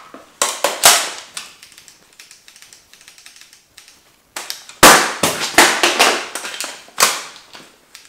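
Magfed paintball marker and its magazines handled in a fast magazine-change drill: two sharp clicks in the first second, a quick run of sharp snaps and knocks about five seconds in, and one more sharp snap about seven seconds in.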